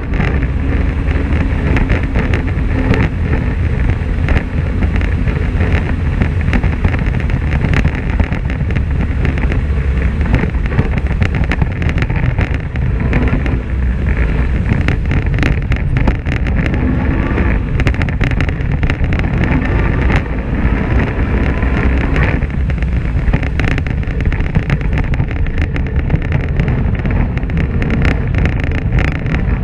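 Polaris RZR XP 1000 side-by-side driving on a gravel track: its parallel-twin engine running at a fairly steady pace, with wind noise on the microphone and a dense rattle of clicks from the tyres and gravel.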